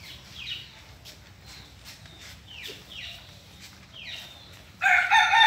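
A bird repeats short high chirps that slide downward, roughly one a second, then about five seconds in a rooster crows, a loud drawn-out call with a short break in it.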